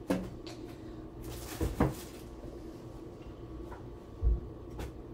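A kitchen cupboard being opened and shut while a glass baking dish is taken out: a knock, a short scraping rush with two knocks, and later a low thump and a click.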